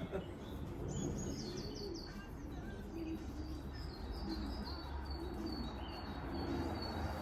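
Pigeons cooing, repeated low rising-and-falling notes, with small birds chirping high and quick over them, most busily about a second in.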